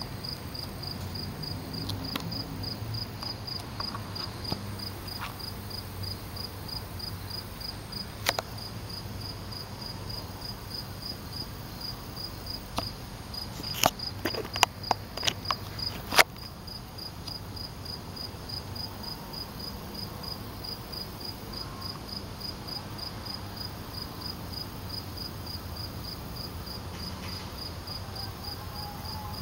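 A cricket chirping steadily in evenly spaced high chirps, over a low background hum, with a few sharp clicks about halfway through.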